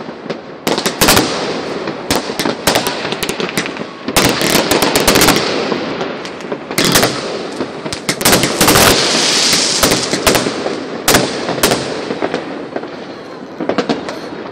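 Fireworks going off: an irregular series of bangs and crackling from aerial bursts, thickest about four seconds in and again around eight to nine seconds.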